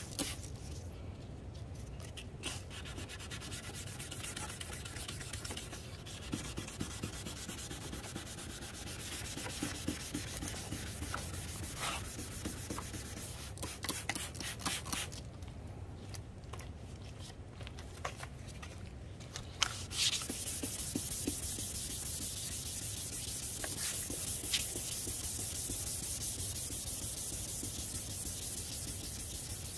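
Sandpaper rubbing back and forth across a plastic headlight lens in steady scratchy strokes. There are brief breaks between strokes around the middle, and it becomes louder and hissier for the last third.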